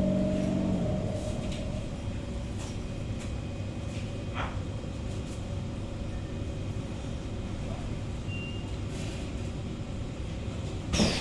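Inside a Kawasaki Heavy Industries C151 MRT car: the electric traction motors' steady whine dies away about a second in, leaving a steady low rumble. A sudden loud burst with a falling tone comes right at the end.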